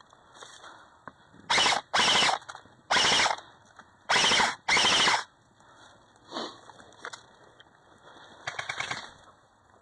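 Airsoft guns firing on full auto in short bursts: five loud bursts in quick succession in the first five seconds, then fainter, rapidly ticking bursts further off near the end.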